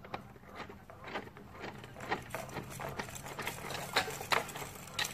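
Irregular sharp clicks and knocks, roughly two or three a second, with two louder ones about four seconds in, over a faint steady low hum.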